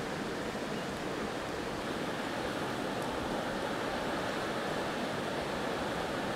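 Steady rushing of river water, an even noise that does not change.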